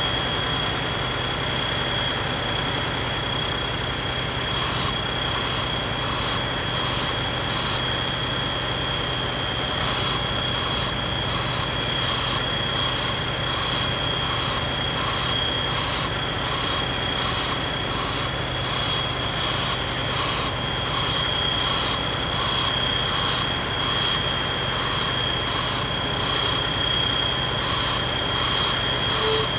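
Hydraulic sheet-piling rig running at steel sheet piles: a steady mechanical drone with a constant high whine, and a faint regular ticking about twice a second coming in about five seconds in.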